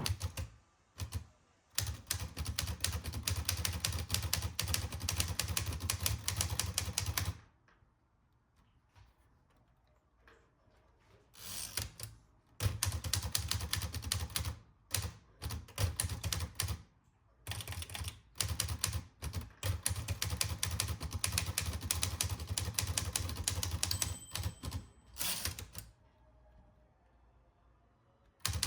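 Smith-Corona Skyriter portable manual typewriter being typed on: quick runs of key strikes, each run broken by pauses of a few seconds.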